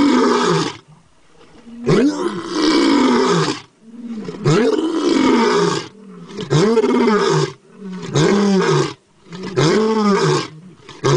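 Tiger roaring in a bout of about six loud calls, each rising and then falling in pitch, with short gaps between them; the calls grow shorter toward the end.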